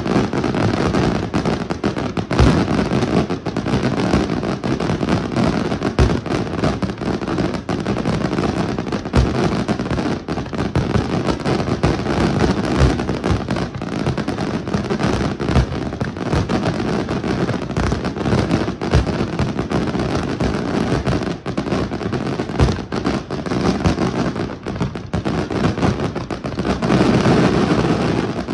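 Aerial fireworks display: a continuous, rapid barrage of shell bursts and crackling, with heavier bangs standing out every few seconds and the firing growing denser near the end.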